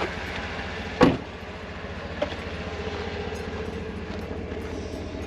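Steady low hum of an idling vehicle engine, with one loud sharp thump about a second in and a lighter click a little after two seconds.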